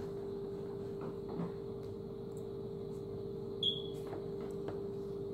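Faint clicks of a Fail Zero rifle bolt's small metal parts being handled in the fingers while the bolt is worked apart, with one sharper metallic tick that rings briefly about three and a half seconds in. A steady hum runs underneath.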